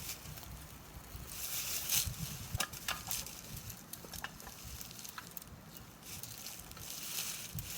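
Footsteps crunching through dry leaves and brush, with rustling swells and a few sharp twig snaps.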